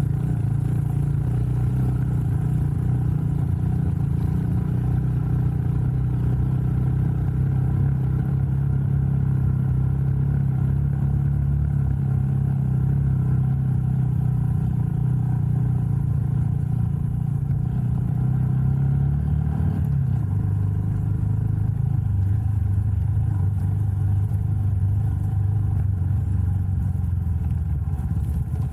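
Honda Super Cub C125's air-cooled single-cylinder engine running steadily under way, heard from on the bike. Its note drops lower about two-thirds of the way through.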